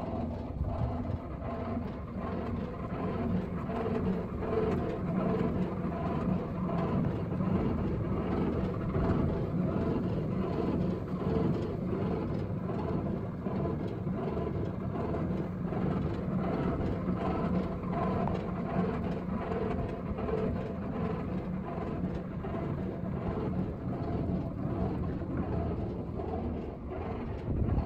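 Belt-driven electric motor and generator rig running steadily: a continuous machine hum with several held tones over rushing mechanical noise, with a short louder bump near the end.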